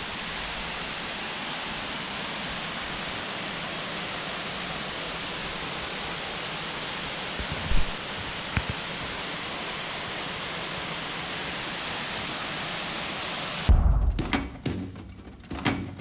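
Steady rushing of waterfall water, with two short knocks a little past halfway. About two seconds before the end it cuts abruptly to music with a strong beat.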